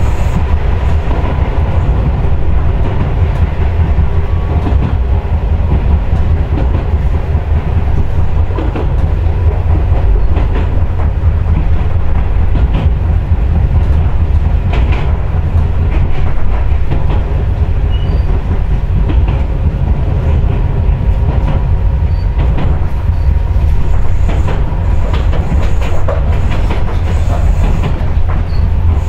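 Running sound inside a Yagan Railway 6050-series electric railcar under way: a steady low rumble of the wheels on the track, with frequent clicks over the rail joints and a faint steady tone.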